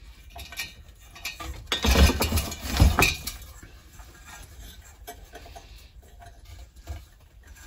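Sheet-metal burner head and small metal parts of a patio heater being handled and fitted: irregular clinks, rattles and scraping of metal, loudest in a cluster about two to three seconds in.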